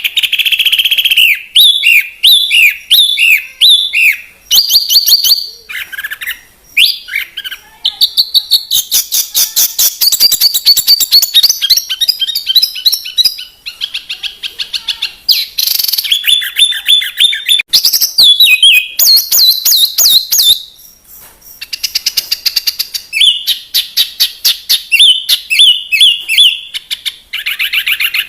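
Songbird singing a long, varied song of repeated downward-swooping whistled notes, runs of rapid high chips and very fast trills, with short pauses between phrases and a longer break about two-thirds of the way through.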